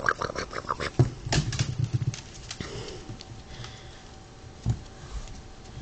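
Mixed-breed puppies' claws pattering and clicking on a wooden floor as they scuffle about. The clicking is busiest in the first two seconds, then thins to scattered taps, with one heavier thump near the end.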